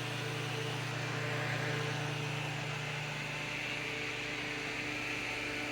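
Holmes Blizzard desk fan running on its high setting, its small C-frame shaded-pole motor giving a steady hum under an even rush of air from the blades.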